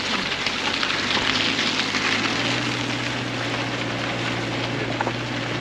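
Subaru Crosstrek's flat-four engine running steadily under way on a rough off-road track, with a continuous hiss of tyre and road noise. A steady low engine hum settles in about two seconds in.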